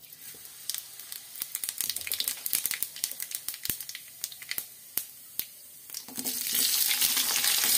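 Cumin seeds crackling in hot oil in a steel kadai, sharp scattered pops several times a second. About six seconds in, chopped onion, tomato and green chilli go into the oil and a louder, steady sizzle takes over.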